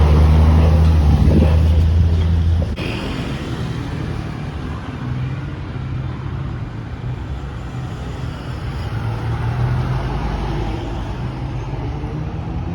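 A motor engine running with a steady low hum. About three seconds in it cuts abruptly to a quieter engine hum with more general noise.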